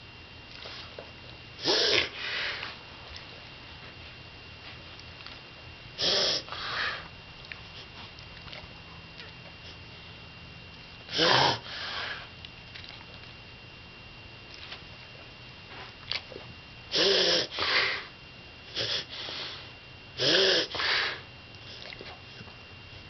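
A pet coughing in short, harsh bursts, often in pairs. The fits come a few seconds apart at first and bunch closer together in the second half.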